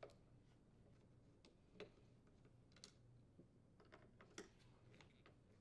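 Faint, irregular clicks and taps of a Torx screwdriver working the screws out of a plastic string-trimmer throttle housing, with hands handling the housing.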